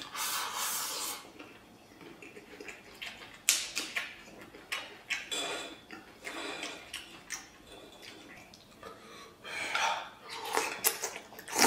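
Eating sounds: wet slurping and chewing of braised pork large intestine with rice, with chopsticks clicking against a metal bowl now and then.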